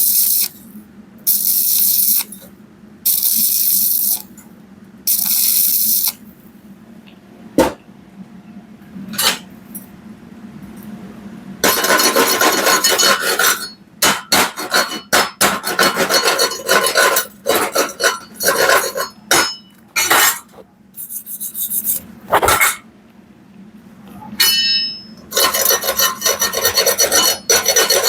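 Stick (arc) welding on thin round steel pipe with a 2.0 mm electrode at 80–90 A: the arc crackles in four short bursts of about a second each, then, from about twelve seconds in, in longer runs broken by brief stops. A low steady hum lies underneath.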